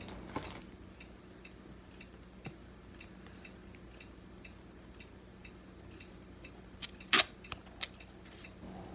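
Steady light ticking, about two ticks a second, like a clock in the room. About seven seconds in come a few sharp clicks and a crackle as the paper inner seal of a jar of whipped body butter is picked at and peeled.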